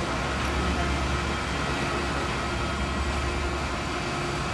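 Jet airliner engines running steadily: a low rumble with a constant whine over it.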